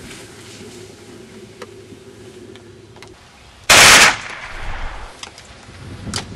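A single loud gunshot about four seconds in, lasting under half a second, with a short fading tail.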